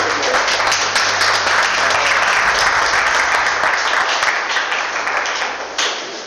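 Audience applauding, a dense patter of many hands clapping that thins out and dies down near the end.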